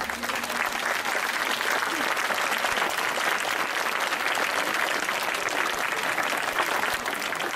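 Audience applauding, a steady, dense clapping that holds even throughout.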